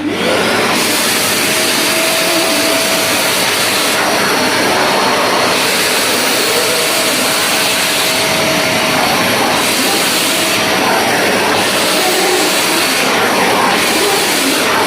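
Karcher WD 5 wet and dry vacuum cleaner switched on and running loud and steady, with a faint steady whine, as it sucks spilled water up off the floor; the hiss of the suction shifts now and then as the nozzle moves.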